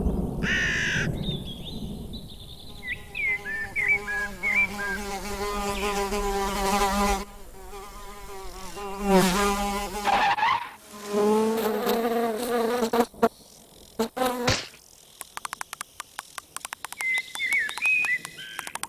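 Cartoon insect buzzing whose pitch swoops up and down like a voice, with high squeaky chirps; near the end come a quick run of clicks and more chirps.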